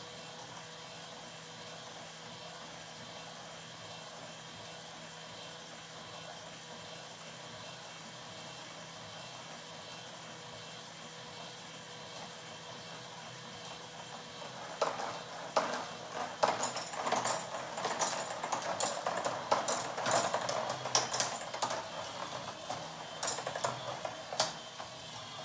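Marbles rolling and clattering through a plastic Makeway marble run: a dense run of clicks and clacks that starts about 15 seconds in and lasts about ten seconds. Before it, only a low steady hum.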